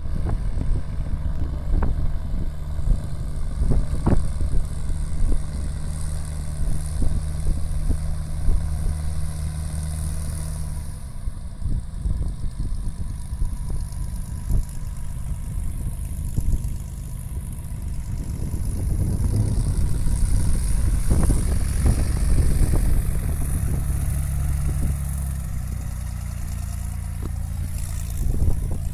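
Single-engine light airplane's piston engine and propeller running at low taxi power nearby, the engine note changing and getting louder about twenty seconds in.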